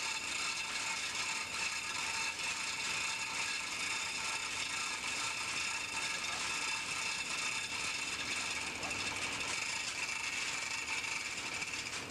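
Steady machinery noise: a dense, even hiss with a strong high band and a fine, rapid clatter running through it.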